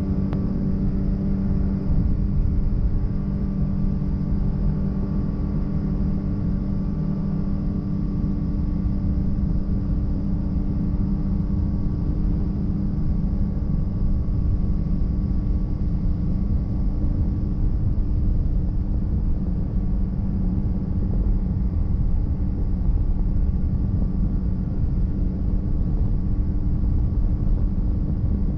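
Polaris RZR side-by-side running at a steady cruise, its engine holding an even pitch over the low rumble of tyres on a gravel road.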